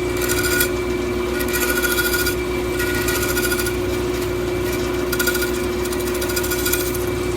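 Bandsaw running with a steady hum while its blade cuts a small wooden glazing moulding in several short passes, each cut heard as a brief rasp over the motor.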